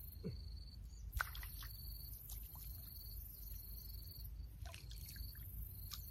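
Pond-side ambience: a steady high insect drone with a repeating chirp, and a few small water plops and drips, the loudest about a second in.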